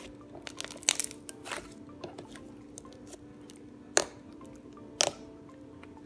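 Peach clay slime made with Model Magic being squeezed and poked by hand. There are short, sharp popping squelches as air pockets burst: a few small ones in the first second and a half and two loud ones about four and five seconds in. A steady low hum runs underneath.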